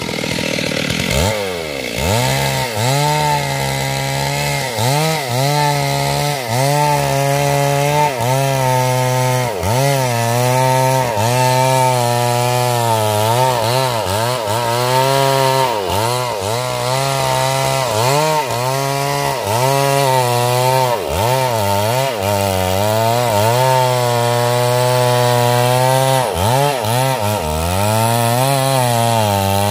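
Stihl MS 382 two-stroke chainsaw cutting wood, its engine pitch dipping under load and recovering about once a second.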